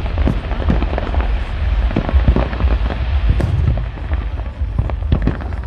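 Fireworks display: a rapid, continuous run of sharp bangs and crackles over a steady low rumble of booms.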